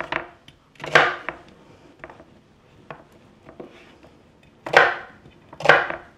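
Chef's knife slicing down through a halved red onion and knocking on a wooden cutting board: three loud cuts, about a second in and twice near the end, with a few lighter knocks in between.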